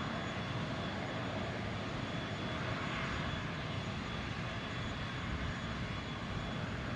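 Steady rushing noise of a parked airliner's turbine running on the apron, with a thin high whine held over it.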